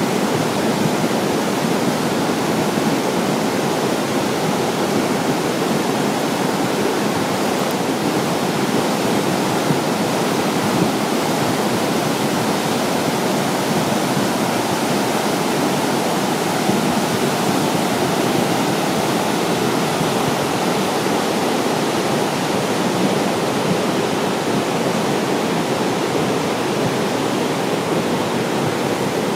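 Flooded Nanzixian Creek, a torrent of muddy brown water swollen by a night of heavy rain, rushing over its gravel bed in a loud, steady, unbroken rush.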